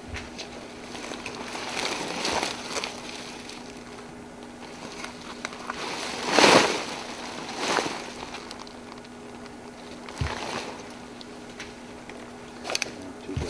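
Dry leaves and plastic sheeting rustling and swishing in several swells, the loudest about halfway through, over a steady low hum.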